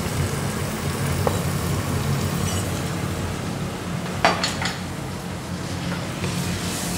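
Cooking sounds: a wooden spatula stirring in an aluminium pot, with a few sharp clinks about four seconds in, over a steady low hum.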